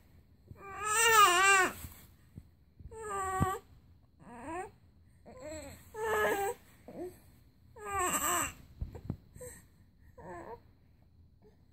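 Two babies cooing and squealing at each other in turns: about six high-pitched baby vocalisations, each up to a second long, with pitch that bends up and down, separated by short pauses.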